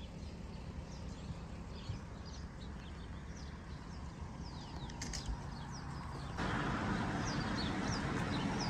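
Small birds chirping, many short, high chirps, over a low background rumble that grows louder about six and a half seconds in.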